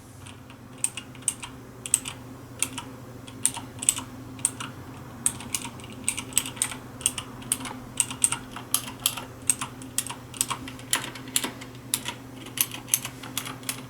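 Cherry MX Blue switches on a Razer BlackWidow Ultimate 2013 mechanical keyboard clicking as keys are pressed only partway, without bottoming out. It is a steady run of sharp, high clicks, a few a second.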